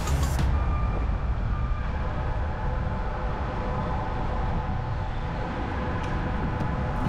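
Steady low rumble of road and engine noise from a vehicle driving in city traffic.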